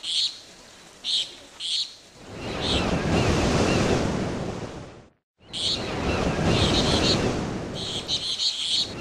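Waves washing in and out in slow swells, with small birds chirping in short bursts over them; the sound cuts out for a moment just past halfway.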